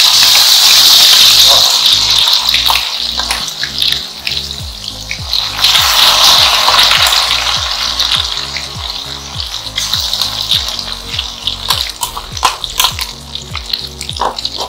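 Turubuk fritter batter dropped into hot oil in a wok, hissing loudly the instant it goes in, then surging again about five and a half seconds in before settling into a steady bubbling sizzle.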